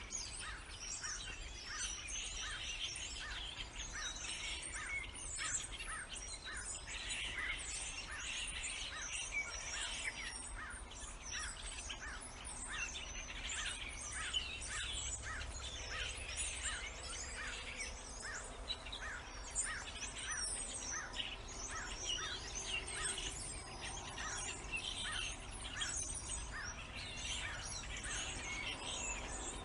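Several birds chirping and singing together: a steady run of short, evenly repeated notes under busier, higher twittering.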